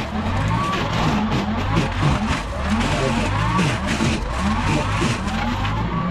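Compact tractor engine running and working under changing load, its pitch rising and falling as it pushes through brush and small trees, with branches snapping and crackling throughout.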